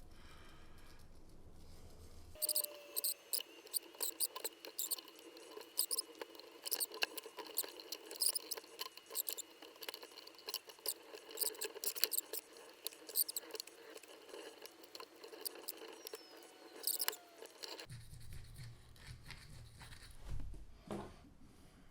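Foil pipe cleaner scrubbing inside a wet Swiss Army knife's tool channels: rapid squeaky scratching and clicking that starts about two seconds in and stops a few seconds before the end.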